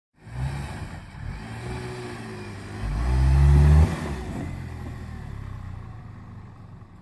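A motor vehicle's engine revving up under throttle, loudest about three to four seconds in, then cutting back sharply and fading away.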